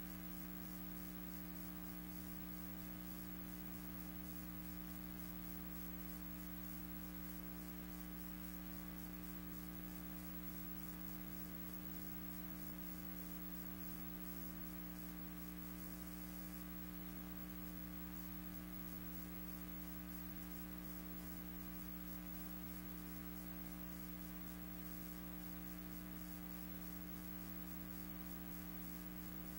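Steady electrical hum with a stack of fixed tones over hiss, unchanging throughout: the empty soundtrack of a silent archival film transfer.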